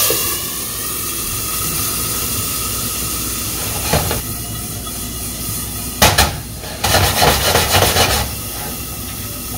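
Water hissing and sizzling into steam in a very hot cast iron skillet under a glass lid. A knock about six seconds in, then a louder stretch of hissing for about a second.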